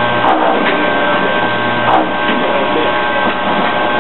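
Automated plastic-ball-bearing assembly machine running, with a mechanical stroke about every two seconds over a steady hum; music plays in the background.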